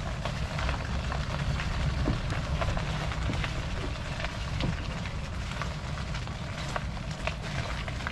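A loaded kayak being wheeled along a paved street on a kayak cart: a steady low rumble of the wheels rolling over asphalt, with many small clicks and rattles from the gear on board.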